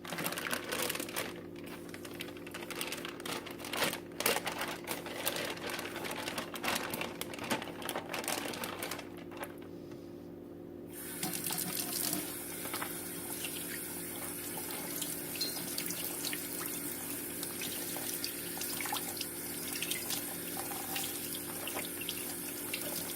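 Water running from a kitchen tap into a sink, with frequent clicks and knocks. The flow stops about nine seconds in and starts again about two seconds later.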